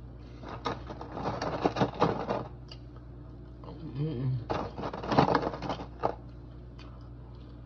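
Two bursts of close crackling and crunching made of many small clicks, the first lasting about two seconds and the second starting about four and a half seconds in, with a short closed-mouth hum between them.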